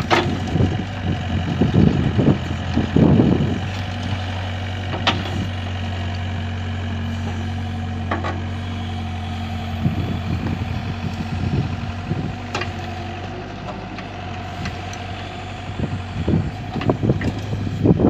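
Doosan compact excavator's diesel engine running steadily with a high steady whine over it as it digs and swings soil. Rough, louder scraping and thudding of the bucket in the dirt near the start and again near the end, with a few sharp clicks or clanks in between.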